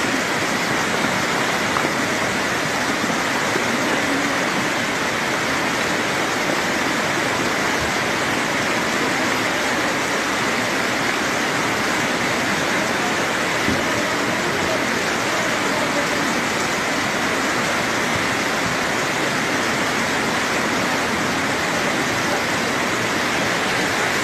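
Muddy floodwater rushing down a village street, a steady loud rush of water: a small mountain stream swollen by days of continuous rain and overflowing its channel onto the road.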